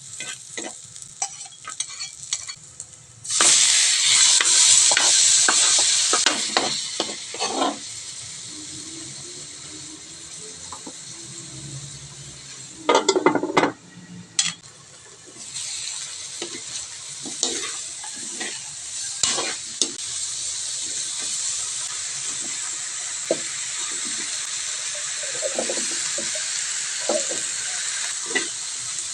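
Food frying and sizzling in hot oil in a pan while being stirred with a utensil. A loud burst of sizzling about three seconds in, as food goes into the oil, dies down over a few seconds; utensil knocks and clatters sound against the pan, loudest around the middle; then a steady sizzle takes over from about halfway.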